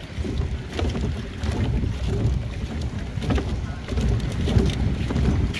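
Wind rumbling on the microphone over water sloshing around a floating plastic pontoon dock, with scattered short knocks through it.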